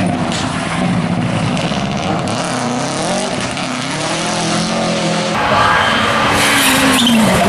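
Subaru Impreza rally car's engine at full throttle as it passes, its pitch rising and falling through gear changes. About five seconds in, the sound cuts to another rally car, louder, its engine pitch falling sharply near the end.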